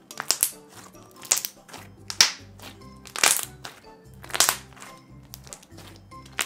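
A hand squeezing and pressing pink slime full of foam beads, giving sharp crackly squishes about once a second, over background music with steady notes.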